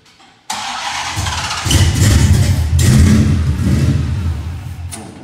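Supercharged Dodge Hellcat Hemi V8 cranks over, fires and runs for about three seconds, then dies away. It will not keep running because the wrong engine tune is loaded.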